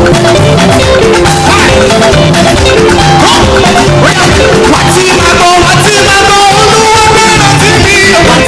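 Loud live praise music from a band and choir, with a steady beat and shaker, and sustained sung or played melody lines over it.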